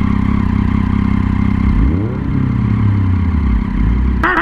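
Motorcycle engine idling, blipped once about two seconds in so that its pitch rises and falls. Just before the end comes a short, loud pitched blip.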